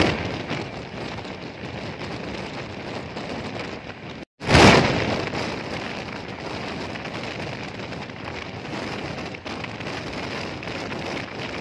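Rushing noise of a passenger train passing close by on the adjacent track, heard from a moving train: wheels on rails and air buffeting together. It cuts out for a moment about four seconds in, comes back with a loud surge and settles to a steady rush.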